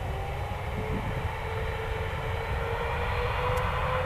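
Boeing 777-300's twin turbofan engines spooling up toward take-off thrust: a whine that rises slowly in pitch over a low rumble, growing gradually louder.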